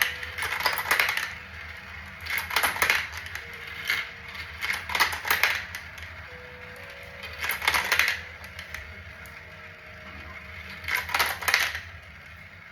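Marbles clattering and clicking along the tracks of a marble run, in repeated bursts every two to three seconds.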